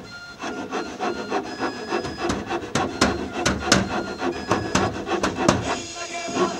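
Carpentry on a timber frame: wood rubbing and scraping under hand tools, with a run of sharp irregular knocks through the middle. Near the end a steady hiss takes over.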